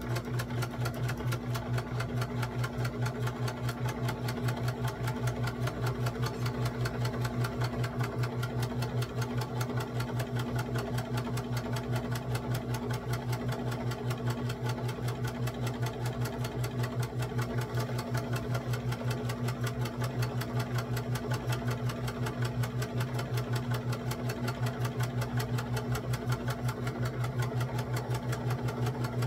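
Electric sewing machine running at a steady speed, its needle stitching a long seam through dress fabric with a rapid, even rhythm over a steady motor hum.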